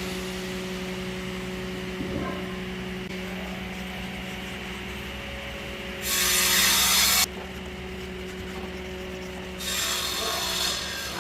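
Sandpaper rubbed hard against wood in two loud scraping strokes of about a second each, one a little past the middle and one near the end, with fainter rubbing between. A steady machine hum runs underneath.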